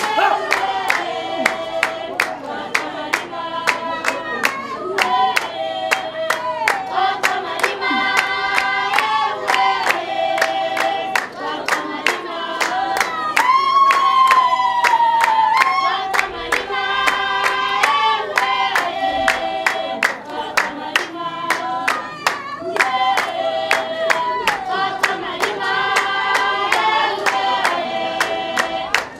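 Basarwa (San) dance song: a group singing in several voice lines over steady, even hand-clapping, a bit over two claps a second. One voice swells and slides in pitch about halfway through.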